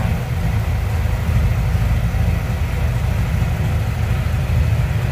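A small fishing boat's engine running steadily under way, a constant low drone with no change in speed.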